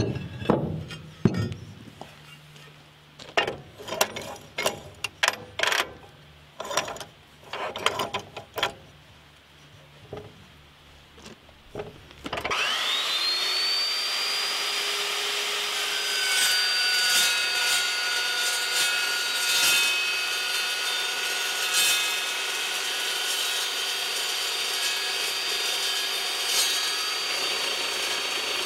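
Knocks and clunks of steel being handled and set in the vise of an Evolution metal-cutting chop saw. About halfway through, the saw's motor starts with a quickly rising whine and runs steadily. Its slow-running carbide-tipped blade then cuts through steel angle iron, adding a steady ringing.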